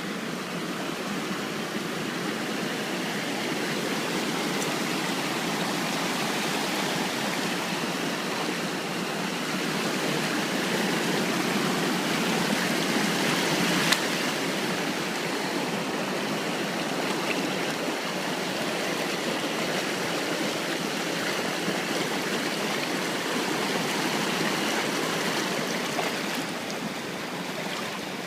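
Creek water rushing steadily, with a single sharp click about halfway through.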